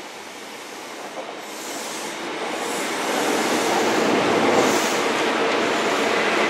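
A train running into the station, its rail noise growing steadily louder, with a steady engine hum coming in over the second half.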